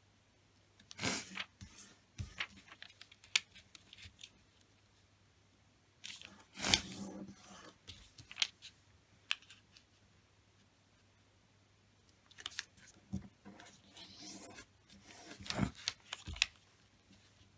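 A sheet of origami paper being folded by hand: corners folded in to the centre and the creases pressed flat, giving short crisp rustles and creasing strokes in three bouts with quiet pauses between. The sharpest crease comes about seven seconds in.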